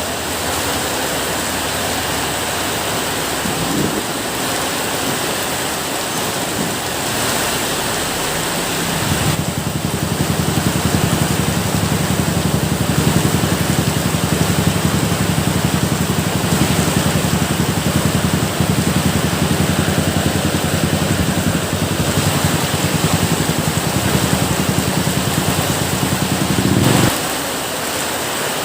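Steady rain hissing. About a third of the way in a louder low rumble sets in beneath it and holds, then cuts off abruptly near the end.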